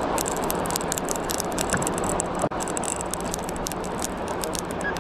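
Dense, irregular clicking and crackling over a steady low hum while a fish is reeled in on a lever-drag conventional reel from a small boat.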